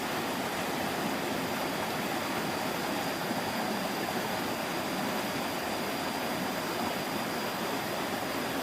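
Steady rush of flowing stream water, with a faint steady high whine running above it.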